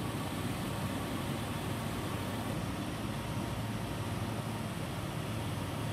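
Mitsubishi Montero Sport engine idling: a steady low hum under an even hiss, with no change in pace.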